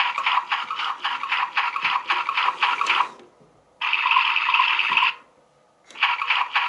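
Toy washing machine running its automatic wash: a rhythmic sloshing, churning water sound that stops briefly twice and starts up again.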